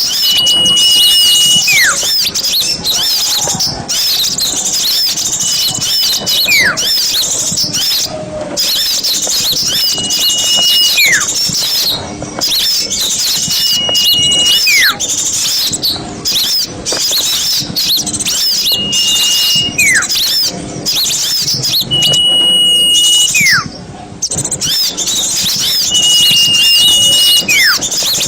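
A dense chorus of small songbirds chirping and twittering rapidly and high-pitched. Over it, a call repeats about every four seconds: a held high whistle that drops in a quick downward sweep.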